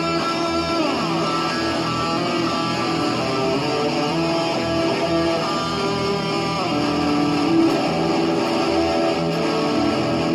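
Guitar playing sustained, ringing notes, with some notes sliding down in pitch about a second in and again past the middle.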